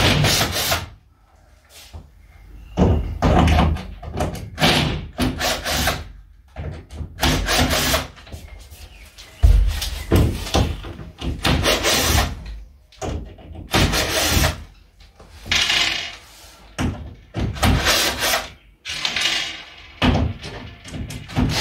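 Repeated knocks, thuds and scraping as a large, heavy object is carried down a staircase, with footsteps on the steps; one heavy thump about nine and a half seconds in.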